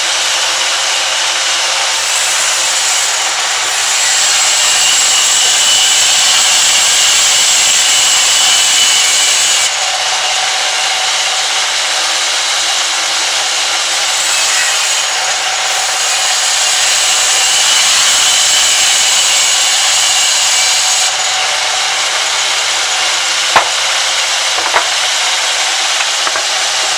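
Sawmill band saw running and cutting lengthwise through a log: a steady high whine over the hiss of the blade in the wood, louder in two stretches of several seconds. Two sharp knocks about a second apart near the end.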